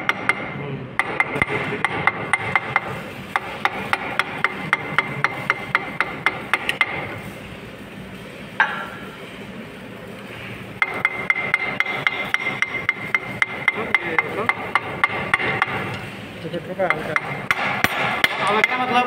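Rapid light hammer taps on a pump's steel bearing hub, about five a second, each with a short metallic ring. The taps come in two long runs with a pause between them, which is how a bearing is driven down to seat it.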